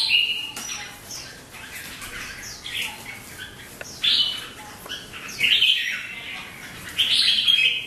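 Red-whiskered bulbuls singing their competitive fighting song: bursts of short, loud phrases repeated every second or so, loudest at the start and again near the end.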